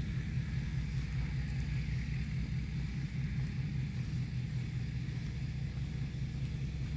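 Steady low rumble that does not change.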